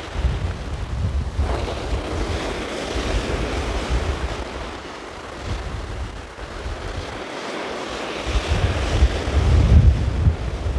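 Sea surf breaking and washing up the beach, with wind buffeting the microphone in gusts. It swells louder near the end as a bigger wave breaks.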